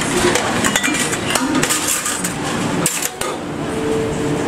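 Clatter of plates and metal serving utensils against a large steel cooking pot: scattered clinks and knocks as biryani is dished up.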